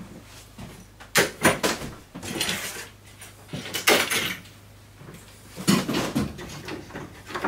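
Wooden key racks being handled and set down near a piano keyframe: a quick run of sharp wooden knocks about a second in, then several scraping, clattering movements of wood on wood.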